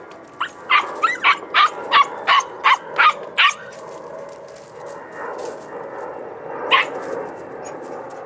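Young podenco puppy yipping at a brush pile: a quick run of about ten sharp, high-pitched barks, roughly three a second, then one more bark near the end.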